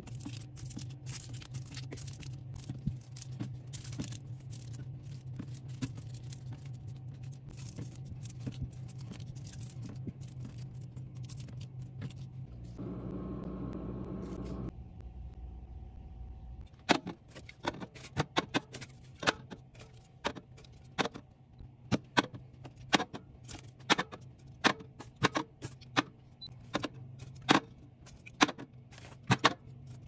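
Drinks being set by hand onto a glass fridge shelf. First come soft taps of juice boxes over a steady low hum. After a two-second rustle about halfway through, there is a quick run of sharp clinks as aluminium cans are placed and knocked against one another.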